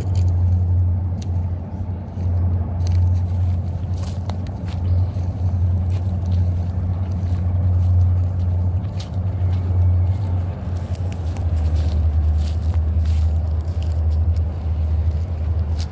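A slow CSX freight train rolling across a steel arch bridge: a steady low rumble from the diesel locomotives and the train, dropping slightly in pitch about eleven seconds in, with scattered faint clicks.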